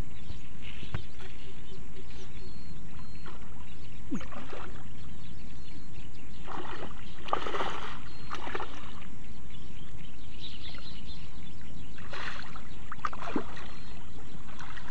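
A hooked catla thrashing and splashing at the water's surface as it is played in on the line, with the biggest splashes about halfway through and again near the end, over a steady low rumble.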